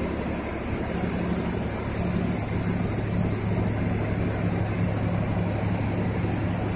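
Diesel engines of the mobile cranes running steadily as they hoist a precast concrete bridge girder: a constant low hum.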